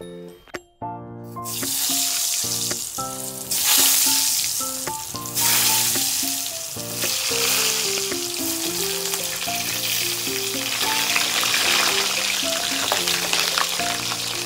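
Food sizzling steadily in hot oil in an aluminium kadai over a high gas flame, the frying starting about a second in, under background music.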